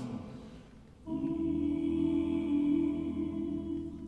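Male a cappella choir singing: a phrase fades out, then about a second in the voices come in on a chord held steady for about three seconds, which dies away near the end.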